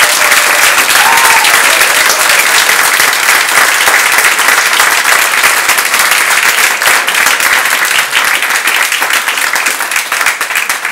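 Audience clapping loudly and steadily, applause given as a vote in an applause-meter round for one candidate.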